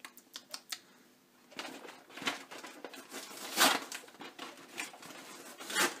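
Rustling, crackling handling noise close to the microphone: a few sharp clicks in the first second, then three louder crinkling bursts, the loudest in the middle.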